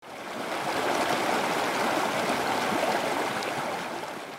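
Steady rush of running water, like a stream, swelling in over the first half second and holding even.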